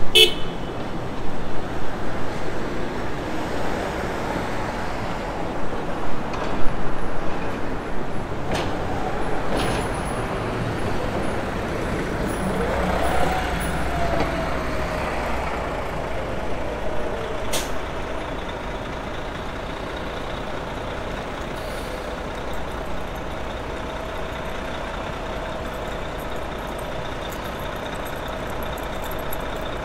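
Street traffic noise with a coach bus driving past about halfway through, its engine a low sound that swells and fades. A faint steady hum continues through the second half.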